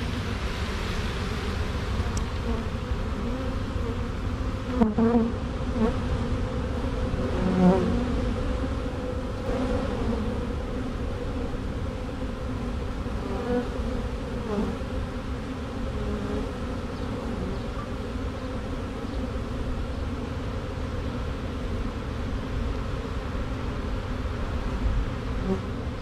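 Dense buzzing of a honey bee swarm freshly dumped out of a basket onto a board, with individual bees flying close past now and then, briefly louder, the loudest about eight seconds in.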